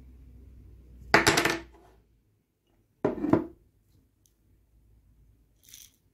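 Two short bursts of clinking and rattling from kitchenware, about two seconds apart, the first a little longer and ringing slightly. A brief faint hiss comes near the end.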